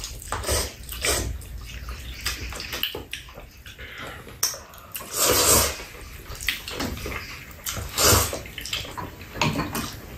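A person slurping and eating noodles, with repeated short wet slurps, the longest and loudest about five seconds in and another about eight seconds in.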